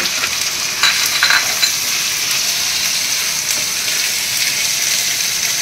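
Sliced onions, tomatoes and cashews frying in oil in a non-stick frying pan, a steady sizzle, stirred with a silicone spatula, with a few short clicks of the stirring about a second in.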